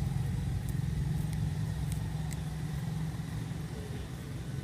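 Steady low rumble of an idling engine, with a few faint sharp clicks over it.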